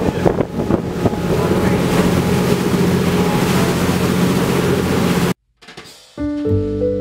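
Tour boat's engine running with a steady hum, under wind buffeting the microphone and the rush of water from the wake. The sound cuts off abruptly about five seconds in, and after a brief gap, music with held notes begins.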